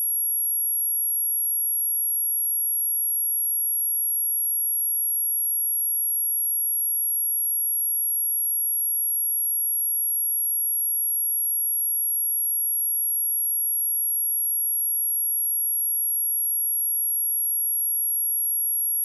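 A single steady, very high-pitched sine tone at 11283 Hz, a speaker test tone held unchanged throughout.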